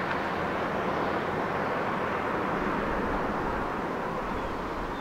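CSX freight train rolling along the track: a steady noise of steel wheels running on the rails.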